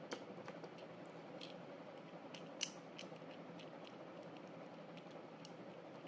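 Scattered sharp plastic clicks from a GAN 12 Maglev 3x3 speedcube being turned, coming at uneven intervals. One louder click comes about two and a half seconds in.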